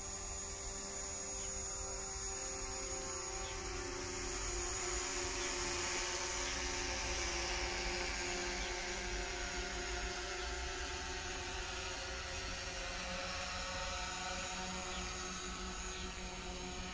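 A steady mechanical hum made of several steady tones over a low rumble, swelling a little a few seconds in and easing off again.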